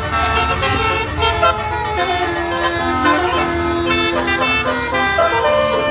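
Telolet bus horn: a multi-tone horn playing a melody of held notes that step up and down in pitch, over a steady low rumble.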